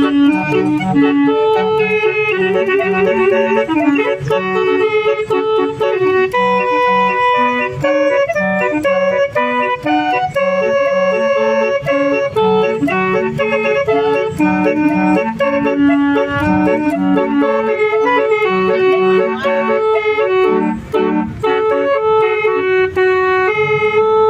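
Basuri musical bus horn playing a tune: several tuned horn notes sounding together in organ-like chords, stepping from note to note over a lower repeating line.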